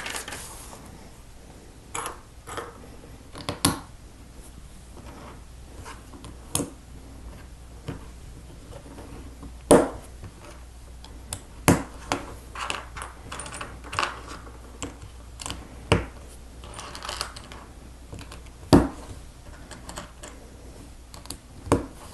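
Small plastic Lego bricks being handled and pressed together: irregular light clicks and rattles, with a few sharper snaps scattered through.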